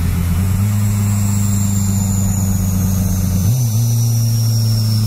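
Motorcycle engine running steadily while riding, its note shifting slightly in pitch twice.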